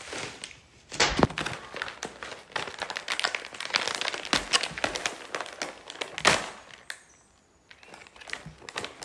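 Food packet crinkling and crackling as it is handled: irregular rustles and clicks, with a sharper snap about a second in and another about six seconds in, and a short quiet spell near the end.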